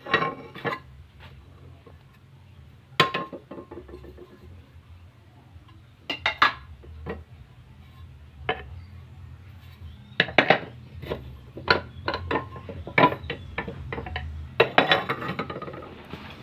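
Steel suspension lower control arms clanking and clinking against each other and the bench vise as they are picked up and moved: a string of irregular sharp metal knocks, some ringing briefly.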